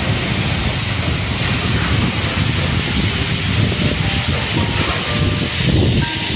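High-pressure car wash wand spraying water against a truck's side and wheels with a steady hiss, blasting off caked landfill mud.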